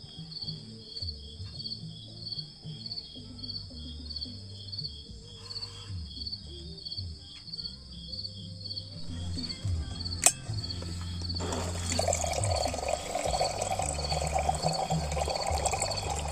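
Crickets chirping in a steady pulse of about two chirps a second, over background music. About ten seconds in there is a sharp click, then water starts pouring or running steadily and becomes the loudest sound.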